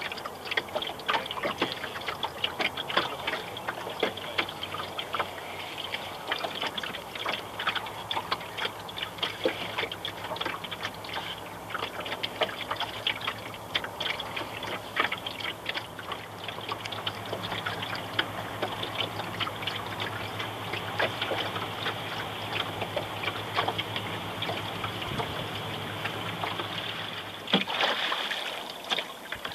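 Water lapping and trickling against a small sailboat's hull, with many small irregular clicks and knocks throughout. A faint steady low hum sits underneath through the middle of the stretch.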